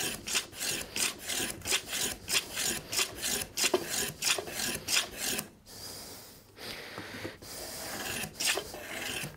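Shoulder plane taking short, quick cutting strokes across the shoulder of a wooden joint, about four rasping strokes a second, trimming away a remaining lip. The strokes stop about five and a half seconds in, and a couple more come near the end.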